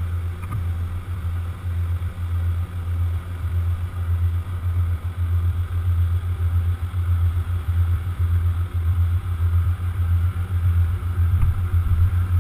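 Steady low machinery drone with a slight wavering throb while a Vestdavit davit swings the fast rescue boat inboard.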